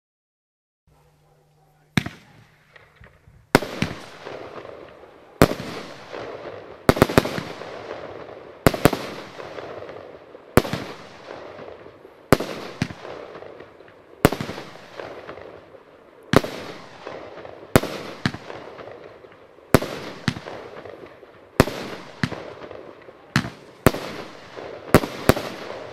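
A 19-shot, 26 mm firework battery (cake) firing its shots one after another, starting about two seconds in: sharp bangs every one to two seconds, some in quick pairs, each trailing off in a fading crackle.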